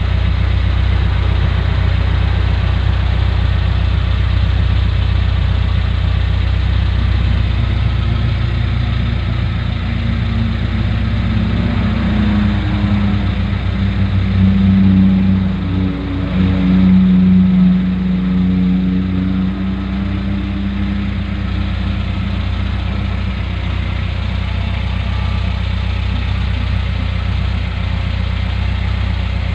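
Suzuki Carry Futura's carburetted engine idling steadily, with two short rises in engine speed about halfway through before it settles back to idle. It is presented as running smoothly, in good health.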